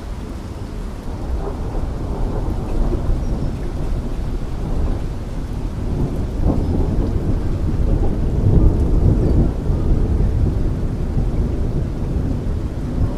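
Thunder rumbling low and long over steady rain. The rumble swells to its loudest about two-thirds of the way through, then eases slightly.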